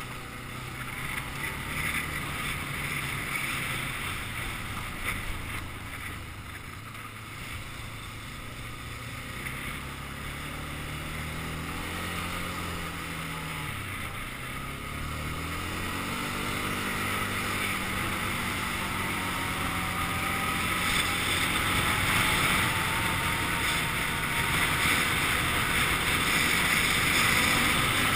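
ATV engine running under way. Its note falls to a low point about 14 seconds in, then rises again as it speeds up, with wind noise on the microphone growing louder toward the end.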